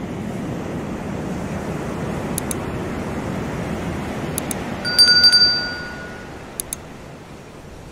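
Surf washing steadily onto the shore, overlaid by a subscribe-button animation's sound effects: a few light mouse clicks and, about five seconds in, a bright notification bell ding that rings out for about a second. The surf sound drops lower after the ding.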